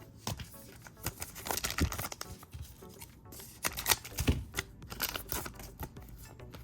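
Trading-card pack wrapper crinkling and tearing and cards being handled, in two bunches of crackling and rustling, one about a second in and one near the middle.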